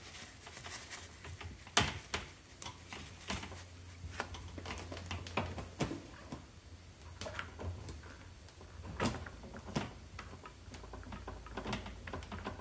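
Scattered light clicks and taps of plastic tubing and a plastic inline filter being handled, as the tube ends are pushed into the filter's push-in fittings.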